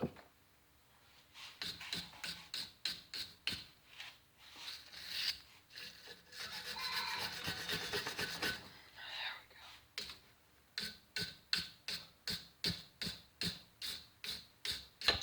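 Hand work on a pair of rusty, oiled pliers: rhythmic rasping strokes, about two to three a second, with a denser stretch of continuous rubbing in the middle.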